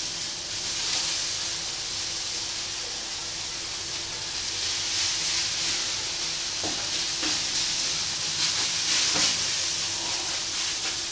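Browned onions and seared liver sizzling in frying pans on a gas hob, with a steady hiss. A spatula scrapes the onions from one pan into the other a few times, about two-thirds of the way through.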